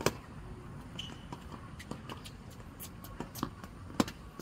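Tennis racket hitting the ball twice, about four seconds apart, each a sharp, loud pop. Fainter knocks and taps come between them.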